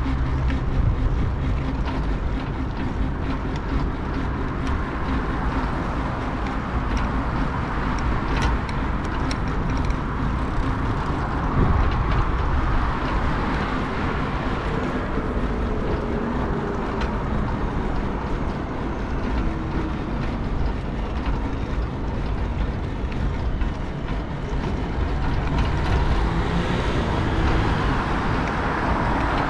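Steady wind and rolling noise on a bicycle-mounted action camera while riding along a paved cycle path, with city traffic behind it. A few sharp rattles about eight seconds in.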